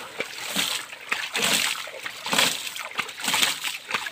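Water splashing as both hands repeatedly scoop and throw water from a shallow stream, about one splash a second.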